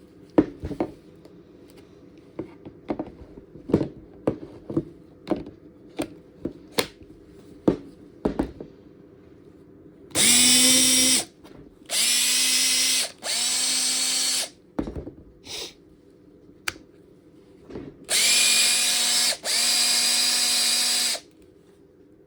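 Makita DF458D 18V cordless driver drill run with no load in five short bursts of one to two seconds each, the motor and gears spinning up and then whining at a steady pitch: a running check of the used drill. Before the runs come a series of sharp clicks.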